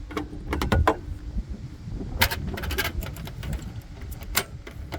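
Sharp clicks and knocks from handling a street lantern while its lamp is changed, a cluster in the first second, more about two seconds in and a single knock near the end, over a steady low rumble.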